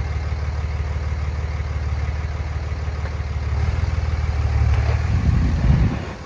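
Cummins inline-six diesel engine of a Dodge pickup running under way, a steady low drone that grows louder about three and a half seconds in, then drops away suddenly near the end.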